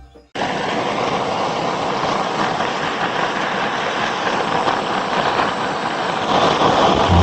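A loud, steady rushing noise with no tone or rhythm in it, a little louder near the end.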